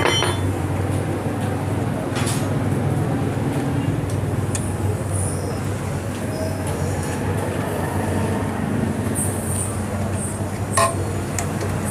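Steady rumble of vehicle traffic, with a couple of small metallic clicks as a washer and nut are fitted onto a motorcycle footrest bolt.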